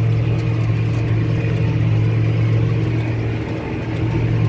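John Deere tractor engine running steadily under load while powering a large square baler, heard from inside the cab as a constant low hum.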